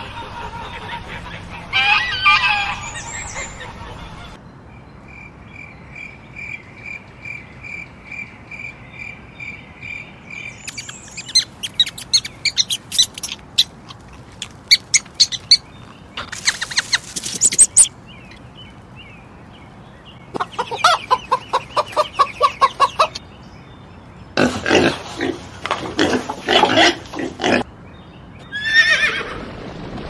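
A run of different animal calls, one short clip after another: a goose calling near the start, a steady series of high peeps and then bursts of rapid squeaks and chirps through the middle, and a horse whinny falling in pitch near the end.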